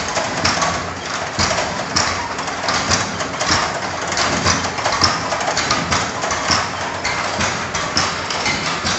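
Belt-driven traditional pulverizer running: pulleys and V-belt turning, with a dense mechanical clatter and frequent irregular knocks.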